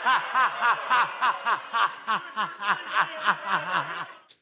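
A man laughing hard: a rapid, even string of about four falling 'ha' pulses a second that fades out near the end.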